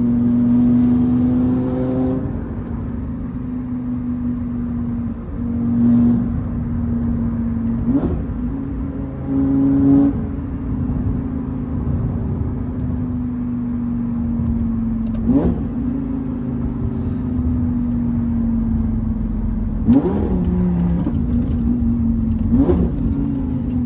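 Lamborghini Gallardo's V10 engine running under way: a steady drone broken by four quick pitch sweeps spaced several seconds apart.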